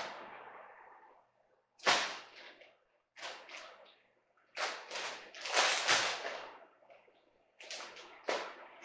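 Plastic zip-top bag crinkling and rustling in about five short bursts, separated by quiet, as raw chicken legs and thighs are put into it.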